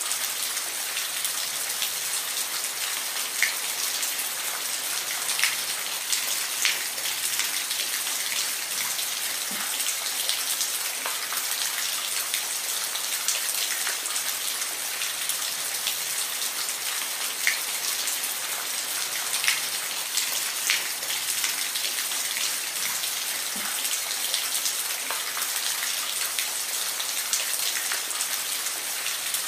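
Steady rain falling, an even hiss with many distinct drops ticking sharply on a hard surface at irregular moments.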